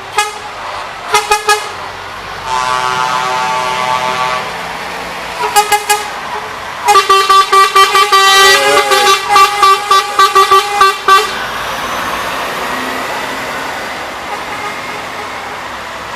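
Truck horns honking: a few short toots, a held blast, then a rapid string of toots for several seconds. Passing traffic noise is left after the honking stops.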